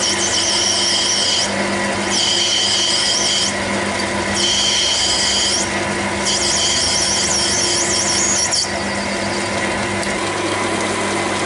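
Metal lathe cutting acetal plastic, the tool squealing at a high pitch in four stretches of one to two seconds with short gaps, as the feed is paused now and then to break the plastic chip. About three quarters of the way through the squeal stops, leaving only the steady hum of the running lathe.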